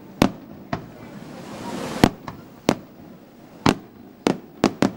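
Aerial fireworks shells bursting: about eight sharp bangs in five seconds, the last three in quick succession. A hiss swells for about a second before one of the bangs.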